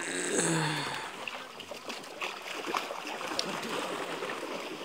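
Water splashing and trickling as a fine-mesh drag net is hauled out of shallow pond water onto the bank, with many small splashes and drips. A brief voice sounds in the first second.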